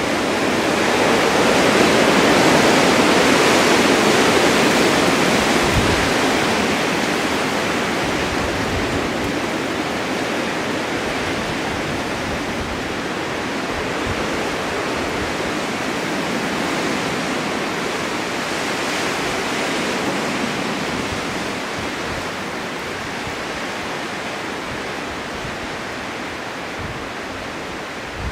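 Blizzard wind rushing steadily with blowing snow. It swells a couple of seconds in, then slowly eases off.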